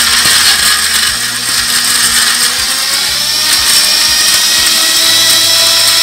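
Electric mixer grinder running steadily at high speed, its small steel jar grinding a wet spice paste of chilli, ginger, garlic and curd.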